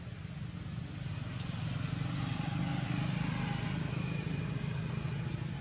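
A motor vehicle passing on the road: engine and tyre noise swelling to a peak about halfway through, then easing off.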